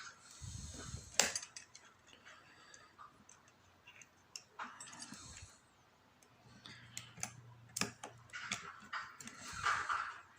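Scattered small metallic clicks and taps from lock picks working inside a mortise lever lock, with the picking tool lifting the levers and catching on their false gates.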